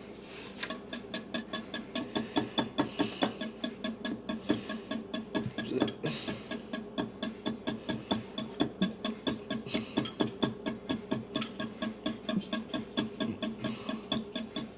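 Eggs being whisked in a bowl by hand: the utensil taps and scrapes against the bowl in a quick, even rhythm of about four strokes a second.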